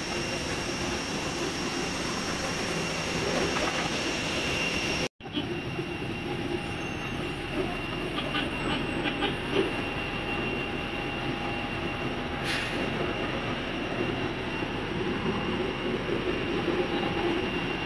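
Steady jet airliner noise: a continuous rushing hum with a thin, steady high-pitched whine. It drops out for an instant about five seconds in.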